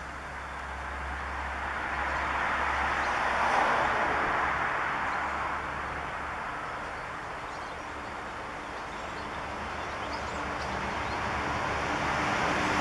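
Passing traffic: a vehicle's noise swells to a peak about four seconds in and fades, then another builds near the end.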